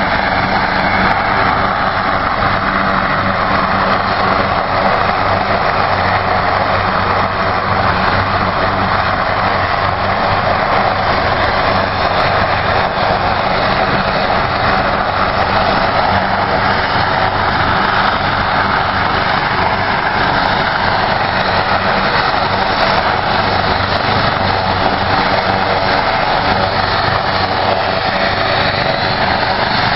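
Rescue helicopter running on the ground with its rotor turning: a steady, loud turbine-and-rotor noise over a low hum.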